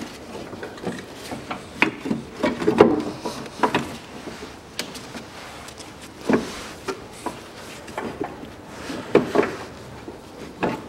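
Irregular clicks, knocks and rubbing scrapes as the drive belt is worked off the power steering pump pulley in a Daewoo Matiz engine bay. The loudest knock comes about three seconds in.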